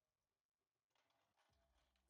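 Near silence: an essentially silent soundtrack.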